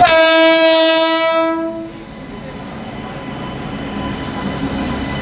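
Indian Railways WAP-7 electric locomotive's horn sounding one steady blast of about a second and a half as it arrives at the platform, followed by the steady rumble of the locomotive and coaches rolling past.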